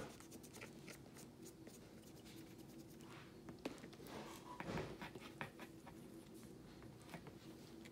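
Faint handling noise: scattered light clicks and short scratches from a small plastic toy figure and a paintbrush being handled, over a faint steady hum.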